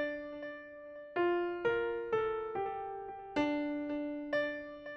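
Background music: a keyboard playing a slow, gentle melody of single notes, each struck and then fading away.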